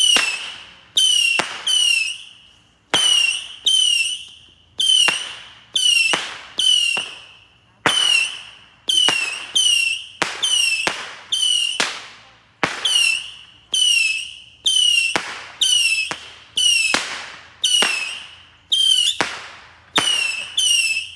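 A consumer multi-shot fireworks cake firing shot after shot, about one and a half a second. Each shot is a sharp pop followed by a short whistle that falls in pitch.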